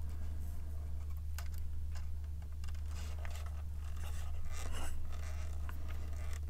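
A small screwdriver driving a tiny screw into a plastic model kit part: faint scratching and small clicks of the driver tip and screw against the plastic, over a steady low hum.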